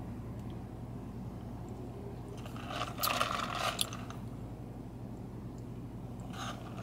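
Sipping an iced latte through a straw: a noisy slurp lasting about a second, starting about two and a half seconds in, and a short one near the end, over a low steady hum.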